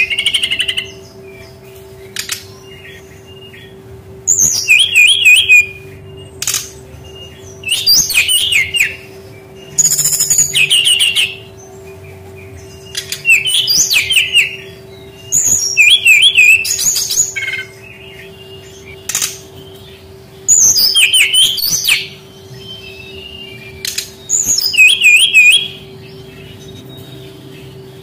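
Brown-chested jungle flycatcher (sikatan rimba dada coklat) singing. It repeats short, loud, warbled high phrases every two to three seconds, with brief single notes between them, over a faint steady hum.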